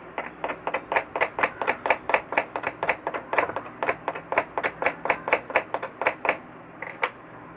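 A fast, even run of sharp taps, about five a second for some six seconds, then one more tap near the end.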